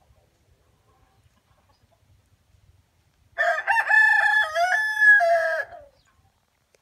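A rooster crowing once: a single loud, multi-part cock-a-doodle-doo lasting about two and a half seconds, starting about halfway in.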